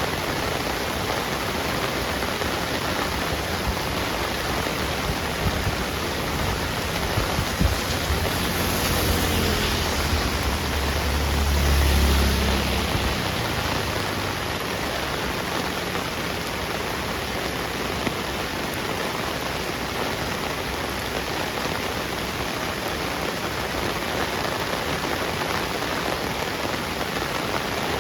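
Heavy rain falling steadily. A low rumble swells and fades about ten seconds in, with a few scattered drip clicks before it.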